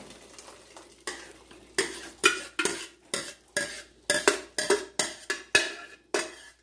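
A metal utensil scraping and knocking against the inside of a tilted aluminium pot as cooked white hominy (canjica) is scooped out into another pan. Quick strokes with a metallic ring, about three a second, starting about a second in.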